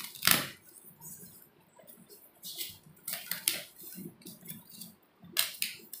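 Microwave oven accessories wrapped in plastic being handled in polystyrene packing: several short bursts of plastic crinkling and rustling with light clinks of a metal ring, the loudest just after the start.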